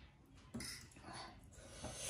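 Quiet eating sounds: soft breaths through the nose, about two of them, with faint clicks of forks lifting instant ramen noodles from a plate.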